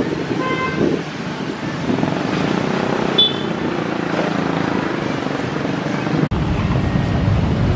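Road traffic crossing a railway level crossing: motorcycles and a car with people's voices, and a brief high-pitched sound about three seconds in. After a sudden cut about six seconds in, a steady low wind rumble on the microphone.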